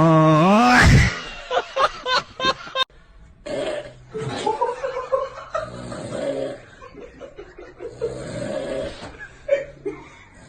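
A person snoring, with people laughing.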